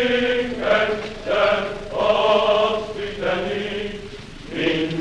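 Slow, chant-like singing in long held notes, in short phrases of about a second each.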